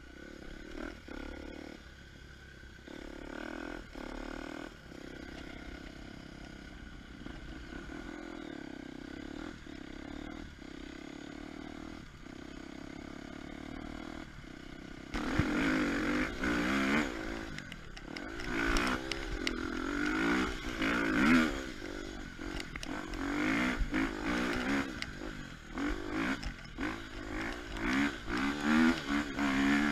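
KTM 250 EXC-F four-stroke single-cylinder enduro motorcycle engine running steadily at low revs, then about halfway through getting louder and revving up and down repeatedly as the bike is ridden off.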